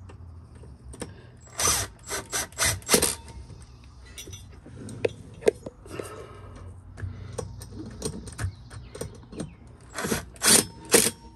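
Milwaukee cordless impact driver run in short bursts, a cluster about two seconds in and another near the end, driving in the screws of a clamshell zinc anode on a boat's propeller shaft. Light metal clicks of handling come between the bursts.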